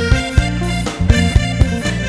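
Live Khmer dance-band music: a drum kit keeps a steady beat under electric bass and sustained melody notes.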